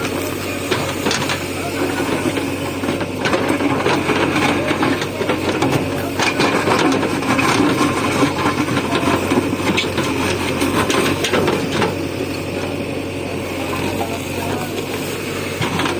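JCB backhoe loader's diesel engine running steadily under load, with scraping and frequent cracking clicks as the bucket breaks up the asphalt road surface.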